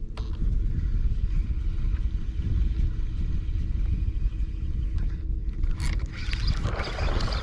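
Steady low rumble around a small fishing boat on the water, with water splashing and sloshing against it for the last second or so.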